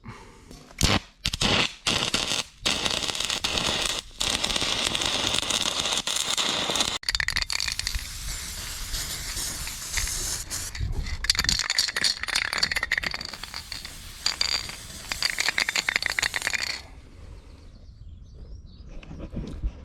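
Arc welding on a steel harrow bracket: a steady crackle of the arc, broken by a few short pauses between runs, that stops suddenly near the end.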